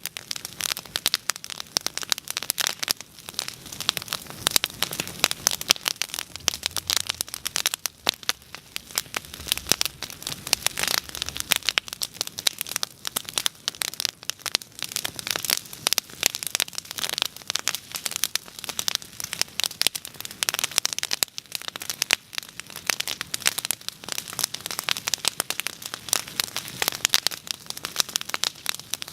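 Bonfire crackling steadily: a dense, continuous stream of sharp pops and snaps over a soft hiss of flames.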